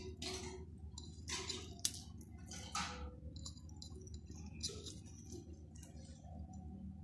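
Short, soft wet squishes as garlic paste is pressed from the fingers onto raw chicken pieces in a glass bowl, four or five times, with one sharp click about two seconds in, over a faint low hum.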